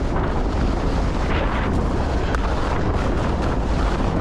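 Wind buffeting the camera microphone at skiing speed, a steady rumble over the hiss of skis sliding on groomed corduroy snow, with a few brief brighter scrapes of the edges.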